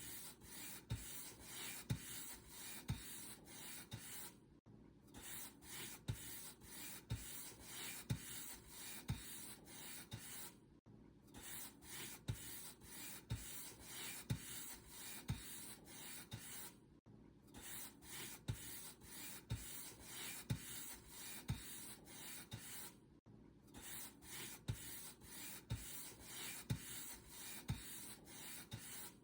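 Paint brush being stroked over a surface, a steady run of soft swishing strokes, about one and a half a second, each with a faint low thud. The strokes break off briefly about every six seconds.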